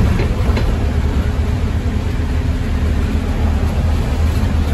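Inside an ADL Enviro200 MMC single-deck bus on the move: a steady low rumble of engine and road noise.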